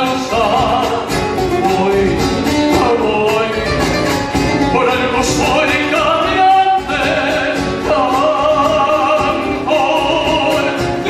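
Folk song: a voice singing over instrumental accompaniment with a steady beat.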